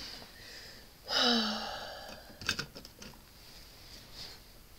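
A short breathy vocal sound from a person about a second in, its pitch falling, then a few faint light taps.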